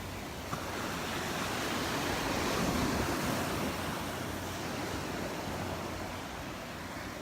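Gulf surf breaking on the beach: a wave rushes in, swelling to its loudest about three seconds in and then easing off, with some wind on the microphone.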